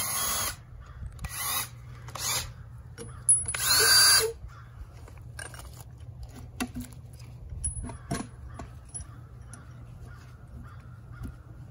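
Cordless drill run in three short bursts into a wooden beam, the loudest about four seconds in. After that, scattered light knocks and clicks as the timber and tools are handled.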